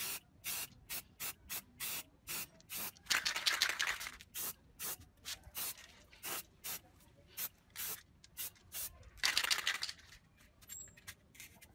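Aerosol spray-paint can hissing in many short bursts, two or three a second, with two longer sprays about three seconds in and again about nine seconds in.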